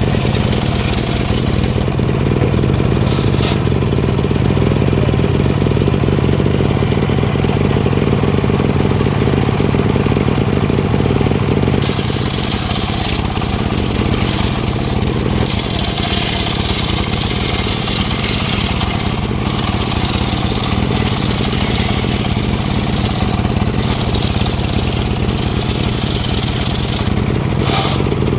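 Engine of a wood saw running steadily. From about twelve seconds in a higher hiss joins it in long stretches, stopping near the end, as the blade cuts timber.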